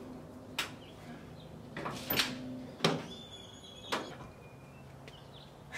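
Wooden truck-bed camper being pushed and slid into a pickup's bed: four sharp knocks about a second apart, with scraping in between.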